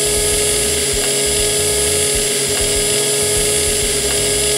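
Motor of a LEGO-built blender running steadily, spinning its blade in a glass pitcher of watermelon milkshake, with a constant whine and a steady pitch.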